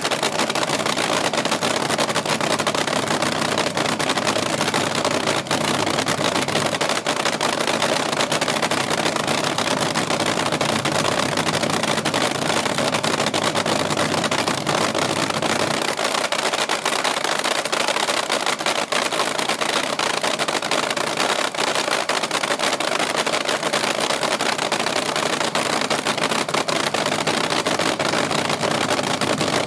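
Supercharged nitro-burning engine of a vintage AA/FA fuel altered drag car running at idle in a cackle: a loud, steady crackling run with no revs.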